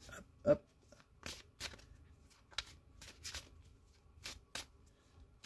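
Oracle cards being shuffled by hand: a run of irregular short papery snaps, with one louder, lower knock about half a second in.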